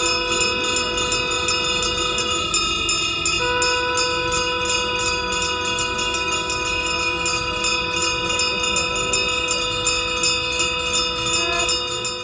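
Conch shells blown together by several priests in long held notes, the blast breaking off briefly about three seconds in and starting again, over bells ringing in a fast, steady rhythm.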